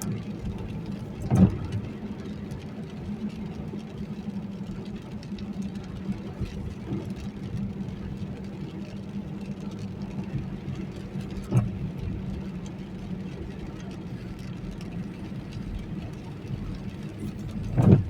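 Inside a car driving in the rain: steady engine and road noise, broken by the windshield wipers knocking across the glass three times, the last a quick double knock near the end.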